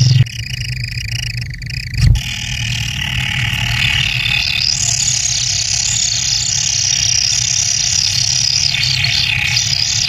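A brood of kingfisher nestlings in their burrow gives a dense, high-pitched begging chorus, which swells from about two seconds in as a parent arrives with a fish. A steady low hum runs underneath, with a single thump about two seconds in.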